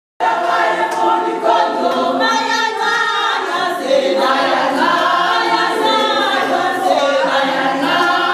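A group of women singing together unaccompanied, many voices at once, starting abruptly out of silence just after the start.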